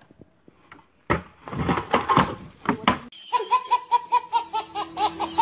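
A baby laughing in quick, even, high-pitched bursts of about five a second, starting about three seconds in. Before that comes a short loud, noisy commotion.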